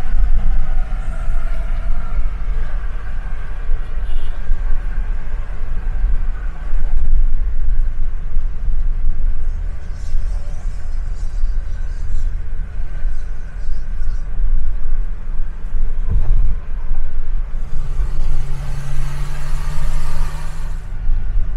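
Steady low rumble of a car driving on a city road, engine and tyre noise. Near the end a louder hum with a hiss comes in for a few seconds.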